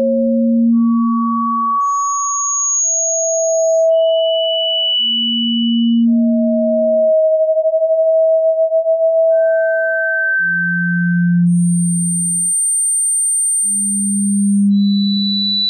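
Pure sine tones from a tinnitus-relief tone sequence: a low tone around 200 Hz under a higher tone that jumps between pitches from about 500 Hz up to about 9 kHz, each held for one to three seconds with soft swells in level. Near the middle two close tones around 650 Hz overlap and waver against each other.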